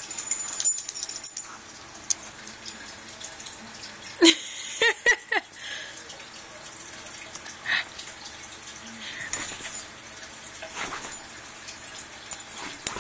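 A German Shepherd puppy and a chihuahua-mix dog at play, with a cluster of short whining yips about four to five seconds in and a few fainter ones later, over a steady hiss.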